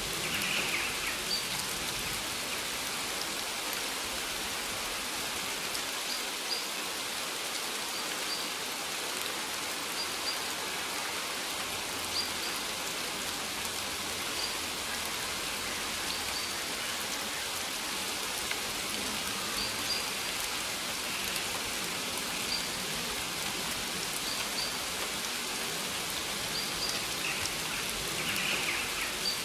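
Steady rain falling on maize leaves, an even hiss with no lulls. Faint short high notes recur every second or two over it.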